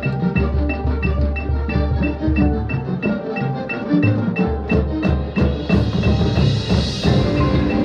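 Marching band playing, with mallet percussion (marimba, xylophone, bells) prominent over held band chords and a steady high tick about four times a second. The deep low notes drop out for about a second around three seconds in, then return.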